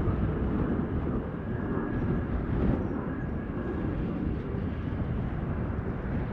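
Boeing 777 freighter's two GE90 turbofans giving a steady, deep rumble of jet noise as the aircraft lands and rolls out along the runway.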